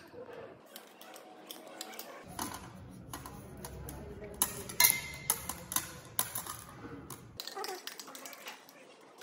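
Pieces of coloured glass clinking and tapping as they are handled and worked: a run of sharp clicks, the loudest few in the middle. A low hum runs under it for a few seconds.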